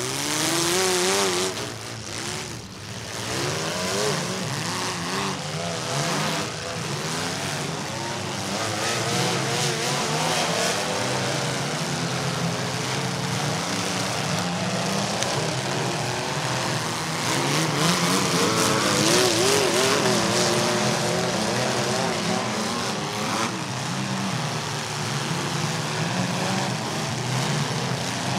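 Many demolition derby compact cars' engines revving hard together through loud open exhaust headers, pitch rising and falling in overlapping waves, jumping up in loudness at the start as the heat gets under way.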